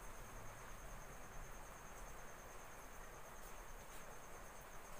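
Faint room tone: a steady hiss with a thin, continuous high-pitched tone running under it.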